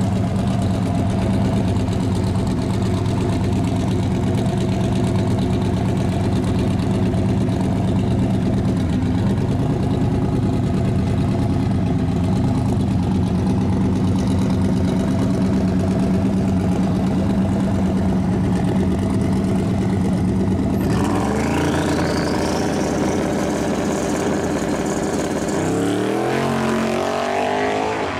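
Turbocharged drag-racing pickup truck's engine running steadily at the line for about twenty seconds. It then launches hard with a whine rising steeply in pitch, and the revs climb again near the end.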